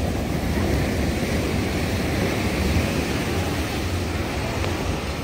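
Steady beach ambience: surf breaking and washing up the shore, with wind rumbling on the microphone.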